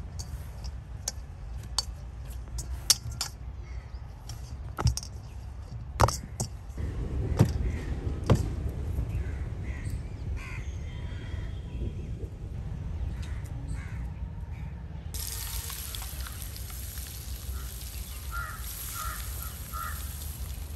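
Scattered sharp knocks and taps through the first part. About three-quarters of the way in, a steady high sizzle of hot oil in a pan begins, with a few short bird calls near the end.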